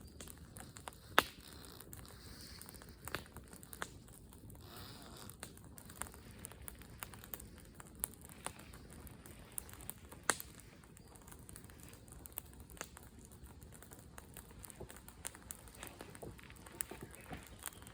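Wood bonfire crackling, with irregular sharp snaps and pops; the loudest snaps come about a second in and again about ten seconds in.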